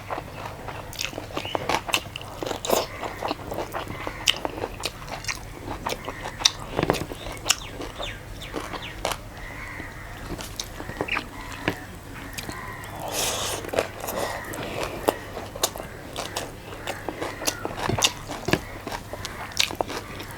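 Close-up eating sounds of a person chewing and biting through a meal of chicken curry and vegetables, with frequent irregular crunches and sharp mouth clicks.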